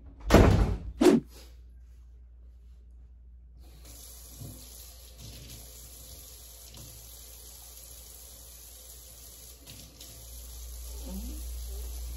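Two loud thuds about half a second and a second in. Then, a few seconds in, a kitchen faucet starts running steadily into a sink while dishes are washed, with soft knocks of dishes now and then.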